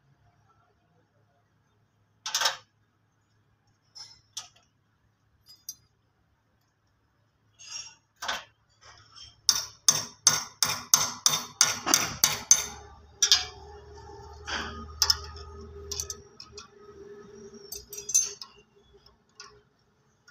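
Steel spanner clinking against bolts and engine metal while the turbocharger of a 260 Turbo tractor is being unbolted. There is a sharp clink early on, then a run of about a dozen quick metallic clicks, about three a second, and then scattered clinks over a faint steady hum.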